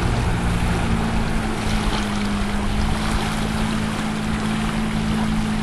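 Motorboat engine running at a steady speed, a low even hum, with wind and water rushing past.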